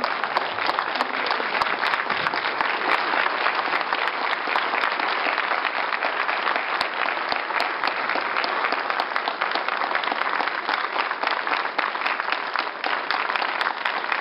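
Audience applauding: many hands clapping in a dense, steady stream.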